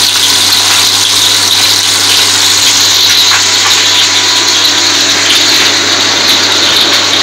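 Loud, steady running of a small electric machine: a low hum under a dense hiss, holding level without a break.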